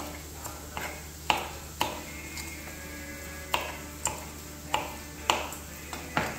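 Kitchen knife chopping green beans on a wooden cutting board: about a dozen sharp knocks of the blade striking the wood, roughly half a second apart, with a short pause around the middle.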